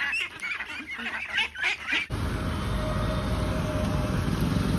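A flock of domestic ducks quacking, many short overlapping calls. About two seconds in, the quacking cuts off abruptly and a steady outdoor rumble takes over.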